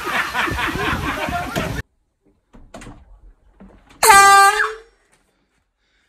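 A single loud air horn blast about four seconds in, held on one steady pitch for under a second. Before it, a couple of seconds of noisy commotion stop abruptly, followed by a near-quiet pause.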